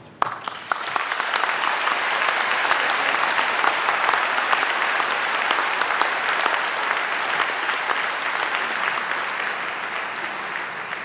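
Audience applauding a PhD graduate as he is presented: clapping starts suddenly with a few sharp first claps, swells to full applause, then slowly fades.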